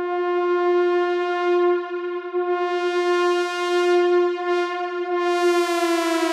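Synth One app synthesizer imitating a Leslie S-31 locomotive horn: one long held note, its brightness swelling and fading a few times, the pitch starting to sag near the end.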